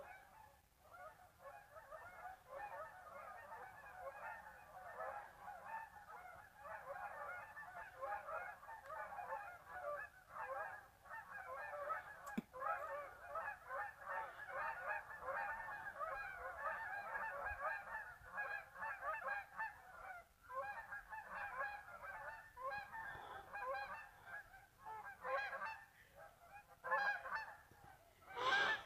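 A large flock of geese honking, many overlapping calls at once, as they fly out from a marsh. The calling swells to its loudest near the end.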